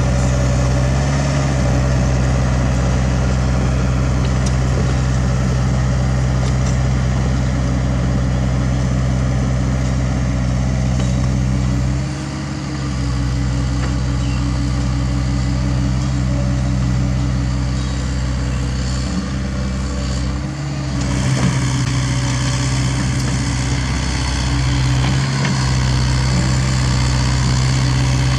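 Cat 305.5E2 mini excavator's diesel engine running steadily as the machine works, its note dipping briefly a few times, most clearly about a third and two-thirds of the way in.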